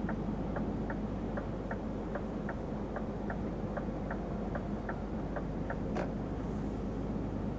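Truck's turn-signal indicator ticking evenly, about three ticks a second, over the steady drone of the engine and road inside the cab. The ticking stops near the end and one sharper click follows.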